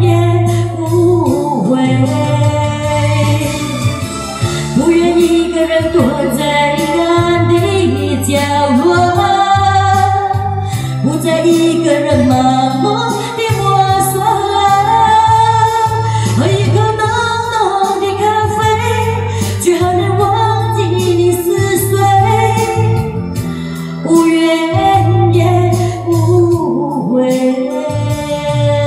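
A woman singing a Mandarin pop ballad live into a microphone over backing music with a steady bass line.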